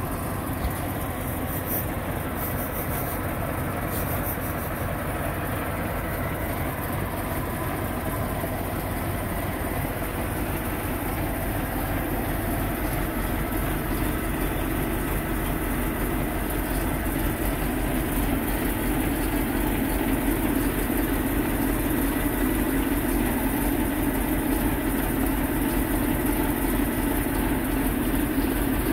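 Ex-Soviet six-wheel-drive truck's V8 diesel engine idling steadily, a little louder in the second half.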